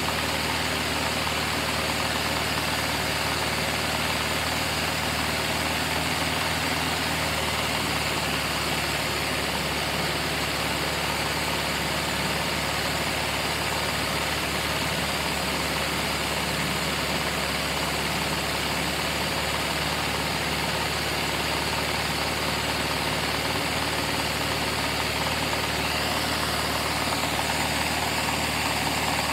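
A Lego V8 vacuum engine running steadily, a constant rushing, whirring mechanical noise with no change in speed as it drives a tread roller that pulls a strip of paper through.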